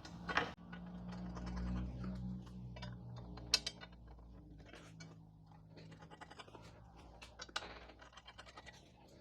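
Faint scraping and a few sharp clicks of metal parts: a stainless steel luggage rack being set on its mounting legs and its flathead screws threaded in by hand. The clearest clicks come about three and a half seconds in and again about seven and a half seconds in.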